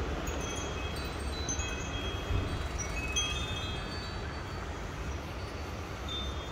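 Scattered high chiming notes at several different pitches, ringing one after another over a steady low rumble.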